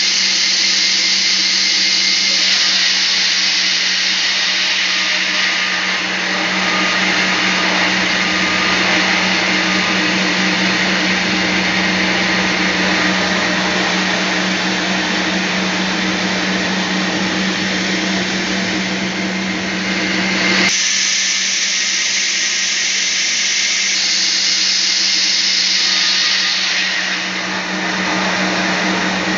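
Band sawmill running steadily, its blade cutting teak log, a steady motor hum under a loud hiss of sawing. About twenty seconds in the sound changes abruptly, the lower part dropping away and the high hiss growing brighter.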